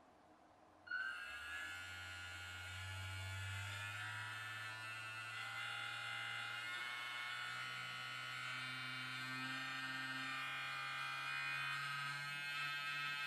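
Small vibrating-toothbrush motor on a foam model boat starts buzzing about a second in and keeps running steadily. Its pitch rises slowly as the speed is turned up.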